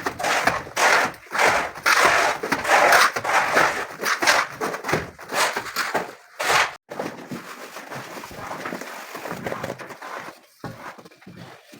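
A plastering trowel scraping and smoothing plaster in rapid repeated strokes, loudest for the first several seconds and softer after about seven seconds.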